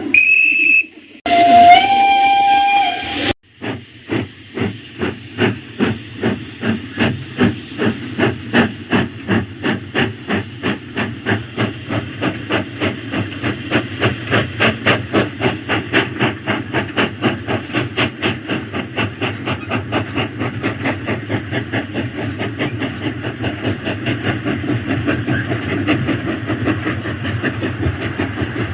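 Steam-locomotive sound effect of a toy train: a whistle tone, then a two-second chord-like whistle blast, then steady rhythmic chuffing with hiss, about two and a half chuffs a second.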